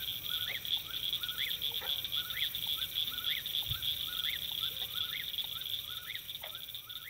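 Nature-sound ambience bed: a steady high insect chorus with a short chirping call repeated about once a second, beginning to fade near the end.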